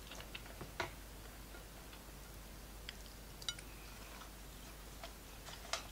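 Quiet mouth sounds of someone chewing a piece of cow skin: a handful of soft, sharp clicks spaced irregularly, the clearest about a second in and just before the end.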